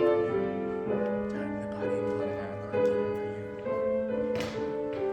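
Slow keyboard music playing held chords that change about once a second, as during the distribution of communion.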